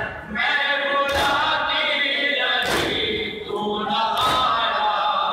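A crowd of Shia mourners chanting a noha together while doing matam, beating their chests in unison: three loud slaps land together about one and a half seconds apart over the chanting.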